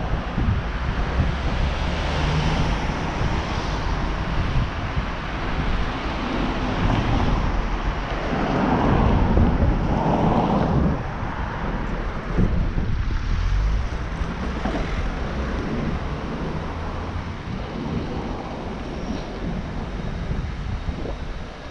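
Wind rushing over the action camera's microphone while riding a cargo bike along a street, with road traffic noise under it. The sound swells louder about eight to eleven seconds in.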